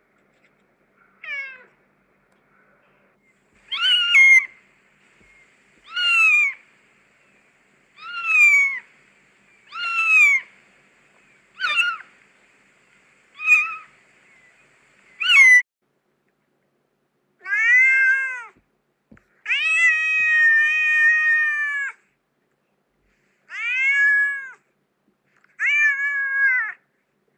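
Cat meowing repeatedly, a dozen or so meows: short falling meows about every two seconds at first, then longer drawn-out meows, one held for about two seconds.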